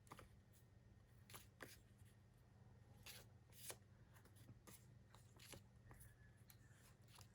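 Near silence with faint rustling and light clicks of plastic sticker sheets and paper packets being handled, over a low steady room hum.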